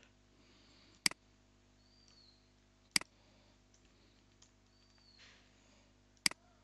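Three sharp single clicks from computer input during code editing, spaced about two and three seconds apart, over a faint steady electrical hum.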